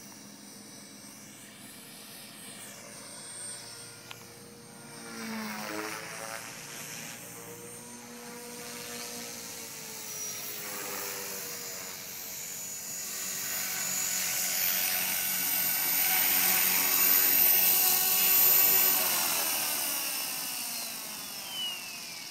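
Radio-controlled model helicopter flying: the whine of its rotor and motor shifts in pitch as it manoeuvres and grows louder as it comes in close. Over the last few seconds the pitch falls steadily as it sets down on the grass and the rotor spools down.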